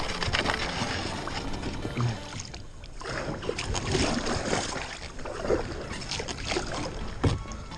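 Kayak paddle strokes: the blades splash into the water and pull through it stroke after stroke, with water sloshing around the hull and a short lull about two and a half seconds in.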